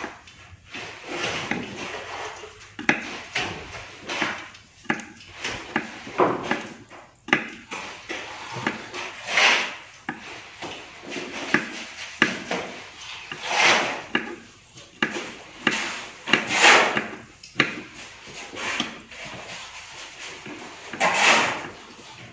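Kitchen knife cutting against a wooden cutting board: irregular sharp taps, with several longer scraping strokes standing out.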